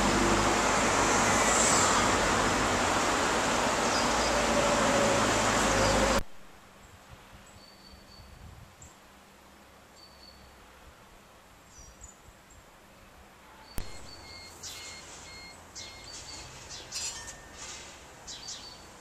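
A loud, steady rushing noise cuts off abruptly about six seconds in. Quieter outdoor ambience follows, with small birds chirping now and then, more often after about fourteen seconds.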